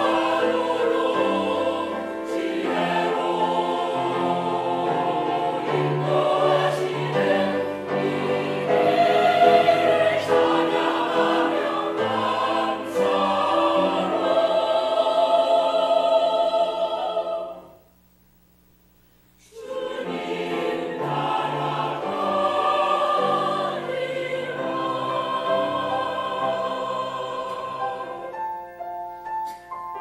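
Church choir singing a Korean hymn in parts. The singing stops for about two seconds past the middle, then the choir comes back in, and near the end it thins out and fades.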